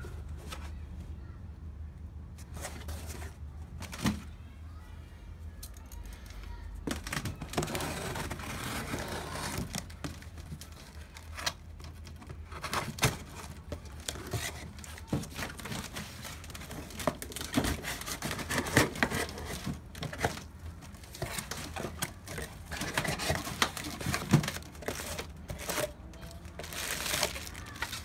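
A package being unboxed by hand: crinkling and tearing of packing material with scattered clicks and knocks from handling, over a steady low hum. The rustling starts about a quarter of the way in and carries on busily from there.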